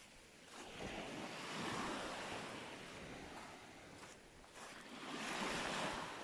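Surf breaking and washing up the beach, swelling twice: about a second and a half in and again near the end.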